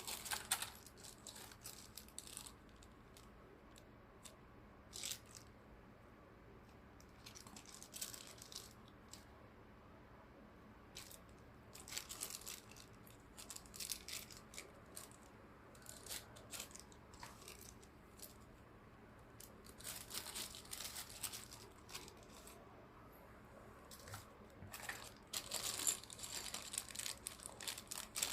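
Keyboard packaging being handled and unwrapped: irregular spells of wrapping rustling, with quiet gaps between them, busiest near the end.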